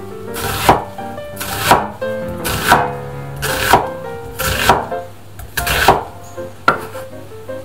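Broad cleaver-style kitchen knife cutting through a raw onion on a wooden cutting board: a crisp slicing stroke about once a second, each ending in a knock of the blade on the board, seven in all. Soft background music plays underneath.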